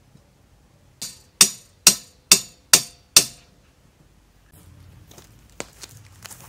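Five sharp metal-on-metal strikes about half a second apart, each with a short ring, as a metal stake is hammered into the ground. From about four and a half seconds in, footsteps crunch through dry pine needles and grass.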